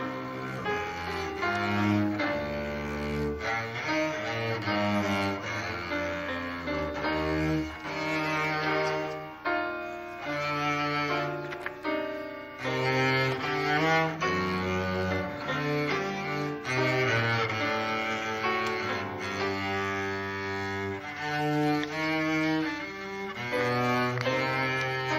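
Cello playing a classical piece live, with a second performer accompanying: several notes sound together throughout.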